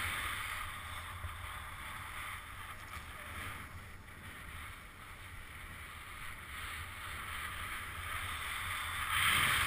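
Snowboard sliding through snow: a steady hiss of the board on the snow, with wind rumbling on the microphone. The hiss swells near the end.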